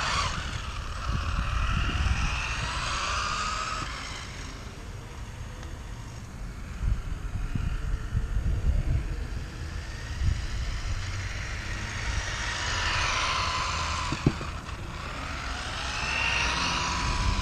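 Radio-controlled car's brushless electric motor and 3D-printed gearbox whining, rising and falling in pitch as the car speeds up and slows, in first gear. The whine is strongest in the first few seconds and again from about twelve seconds on, over a low rumble.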